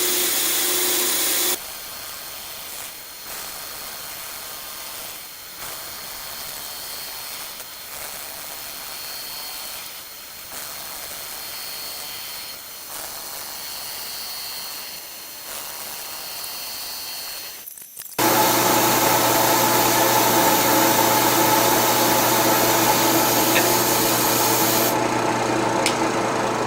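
Milling machine with a 2¾-inch cutter running and cutting, stopping about a second and a half in. After a quieter stretch it starts again about 18 seconds in and runs steadily with a hum of several tones.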